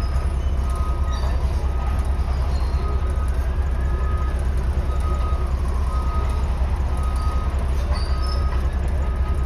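An engine running with a steady low rumble, while a short high beep repeats about once a second.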